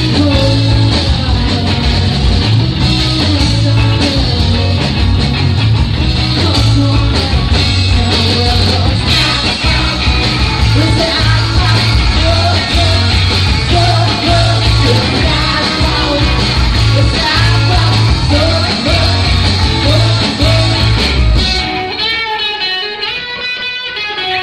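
Live punk-flavoured indie rock band playing loud: electric guitar, electric bass and a Gretsch drum kit, with sung vocals. A couple of seconds before the end the drums and bass stop, leaving the electric guitar ringing on alone.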